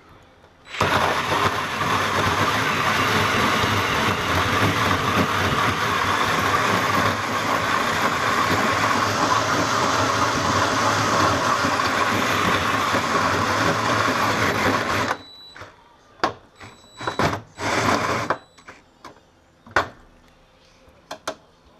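Cordless drill driving a large bi-metal hole saw through the sheet-steel front wing of a Toyota Hilux, its teeth cutting the metal steadily for about fourteen seconds before it stops. A few short bursts follow as the cut is finished.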